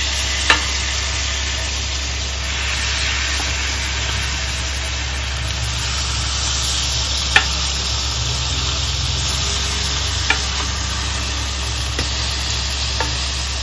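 Hot sizzler plate sizzling steadily as creamy malai boti mutton and sauce are spooned onto it over cabbage leaves, with a few light clicks of the spoon against the plate.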